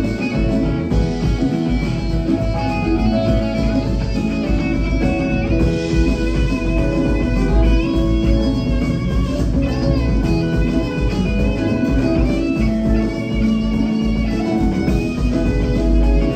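Live rock band playing, with electric guitar over bass, drums and congas.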